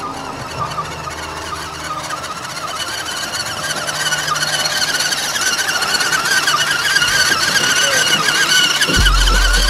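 Electric motor of an RC crawler truck whining with a wavering pitch as it drives through a shallow stream. Background music plays under it, with a heavy bass coming in near the end.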